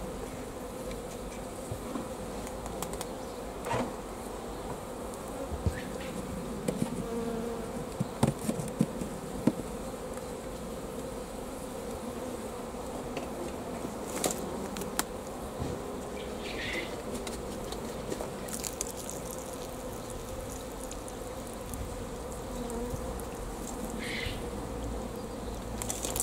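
A newly housed swarm of honey bees buzzing steadily around a hive entrance as they cluster to get back in, with a few brief sharp clicks.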